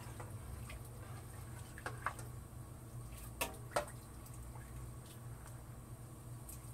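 Spoon stirring a stainless steel stockpot of beans and vegetables in liquid: quiet sloshing with a few light clinks of the spoon against the pot around the middle. A low steady hum runs underneath.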